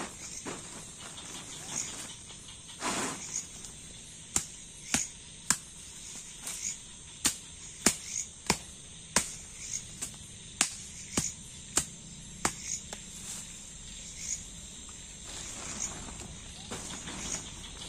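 Crickets and other night insects chirring steadily, with a run of about fifteen sharp knocks, one or two a second, over some ten seconds in the middle.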